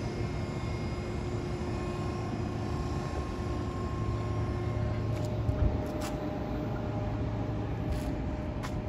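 Steady low hum of a city outdoors: distant traffic and machinery, with a few faint clicks about halfway through and near the end.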